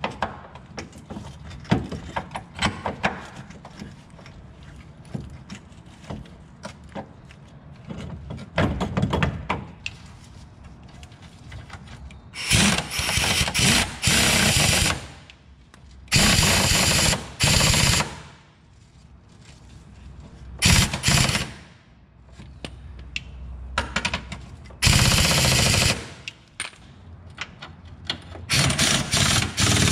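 Pneumatic impact wrench hammering in repeated bursts of a second or two, about six in all through the second half, running down the bolts of a new front lower control arm. Before the bursts there are lighter metal clicks and taps.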